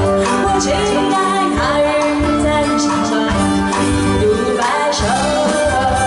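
A woman singing a Chinese pop ballad live into a microphone, backed by a band with drums, electric guitar and keyboard.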